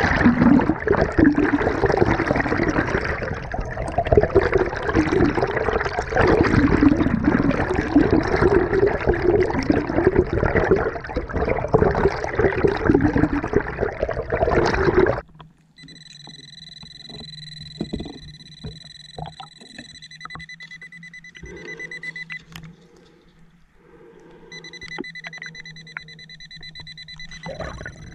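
Loud rushing and bubbling of water heard underwater, which stops abruptly about halfway through. After that it is quieter, and an underwater metal detector gives a steady high electronic tone for several seconds, stops, then sounds again near the end.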